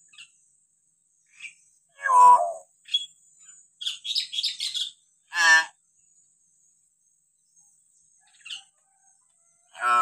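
Hill myna calling: loud, rich calls with several pitches at once about two seconds in and again about five and a half seconds in, a quick run of higher chirps and whistles around four seconds, a few short single chirps between them, and another loud call starting near the end.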